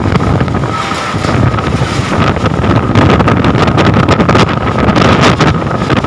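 Storm-force wind gusting hard against the phone's microphone, getting louder about a second and a half in, with many short cracks and knocks mixed in.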